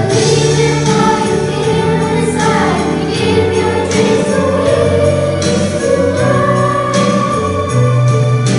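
A children's choir singing a Christmas song over instrumental accompaniment, with jingle bells shaking along.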